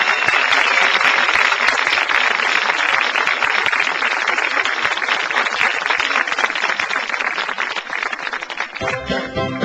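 Studio audience applauding steadily, easing off near the end as music with a beat comes in about nine seconds in.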